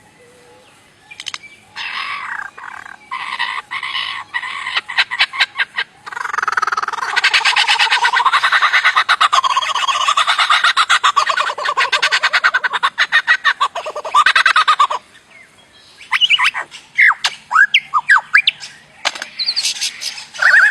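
A bird giving a strange, alien-like call. First come rapid rattling trains of pulses, then a long, fast-pulsed warble that wavers in pitch for about eight seconds and stops abruptly, then short sharp chirps and whistles.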